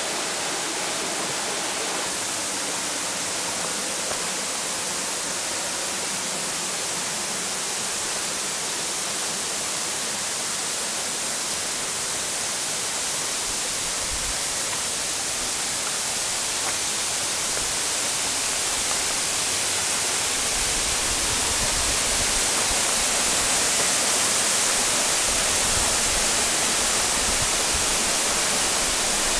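Rushing water of the Valmolina stream and the 30 m Pesegh waterfall: a steady, even hiss that grows louder over the second half.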